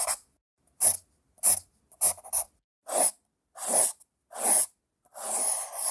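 Pencil drawing on paper: six short separate strokes with pauses between them, then a longer continuous scribble starting about five seconds in.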